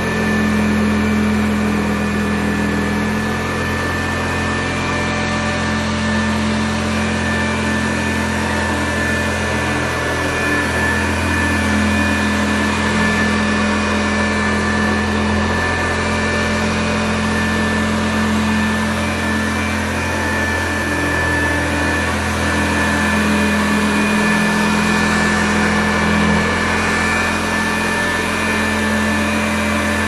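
A 1960 Hoover Convertible Model 31 upright vacuum cleaner running steadily, a high motor whine over a low hum and the rush of air.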